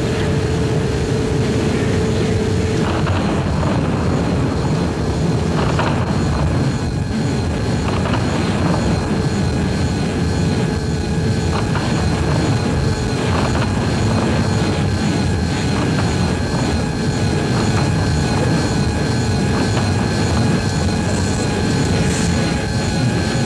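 A steady, loud, low rumbling drone with no breaks.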